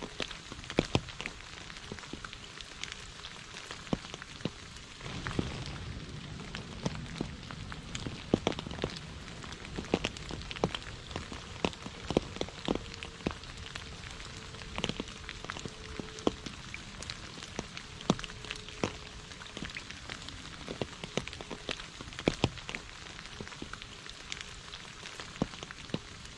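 Rain falling into a shallow puddle on a leaf-covered path: a steady hiss of rain with many separate drops splashing sharply into the water at irregular moments.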